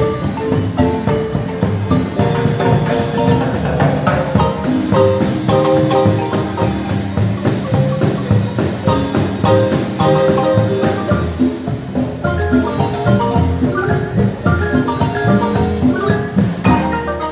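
Guatemalan marimba ensemble playing a quick melody of rapid struck wooden-bar notes over marimba bass notes, with percussion keeping the beat.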